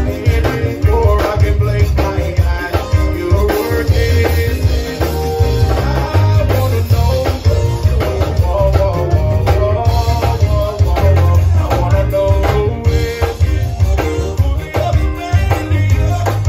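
Live zydeco band playing a dance tune: accordion, electric bass and guitar over a steady drum beat, with a heavy pulsing bass line.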